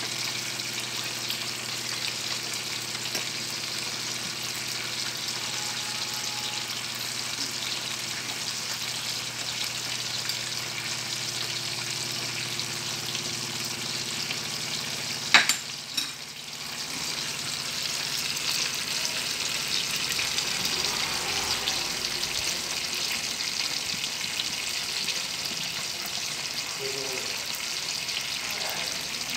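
Pomfret sizzling and bubbling in braising liquid in a frying pan on a gas burner. A low steady hum underneath stops about halfway, right after a single sharp click, and the sizzling then comes up a little louder.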